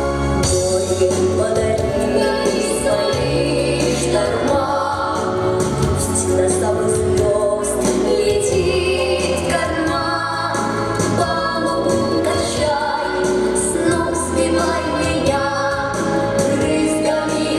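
Children singing a song, several voices together, over an instrumental accompaniment with a steady bass line.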